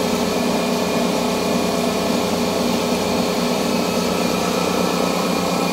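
Air compressor feeding an airbrush, running steadily: an even motor hum made of several held tones, with a hiss above it.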